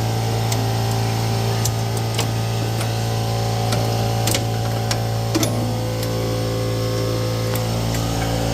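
A steady mechanical hum with scattered light clicks and taps of hand tools on metal as parts are worked loose under a car.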